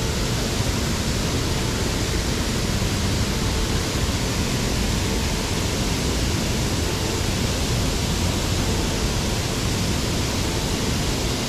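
Steady rushing of a mountain stream, an even, unbroken water noise.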